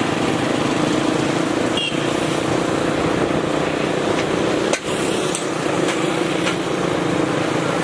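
A vehicle running steadily: a constant engine hum over a dense rushing noise, with a few faint clicks.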